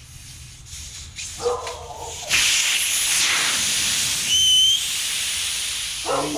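Air hissing out of an inflated tubeless mountain bike tyre's Presta valve as the valve core is unscrewed with a valve core remover, letting the tyre down so sealant can go in. The hiss starts about two seconds in and is loud for a few seconds, with a brief whistle partway through.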